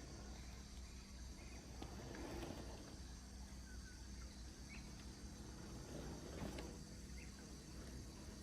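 Faint rainforest ambience: a steady insect drone with a few short bird chirps, and two brief rustles partway through.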